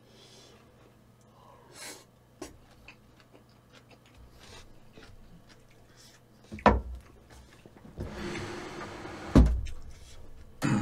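Mukbang eating sounds: light clicks and scrapes of a spoon in the bowl and soft chewing, with two heavy thumps about two-thirds of the way through and near the end.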